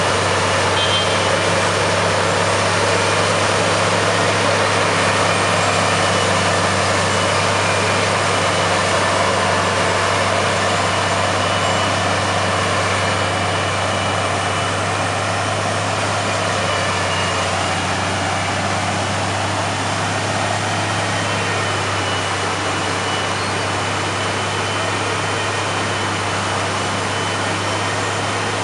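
Heavy diesel road-works machinery running steadily, a constant deep engine hum with mechanical noise over it.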